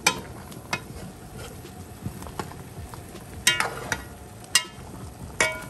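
Large metal spoon stirring turkey necks in a metal cooking pot, clinking and ringing against the pot several times, over a steady sizzle from the browning stew.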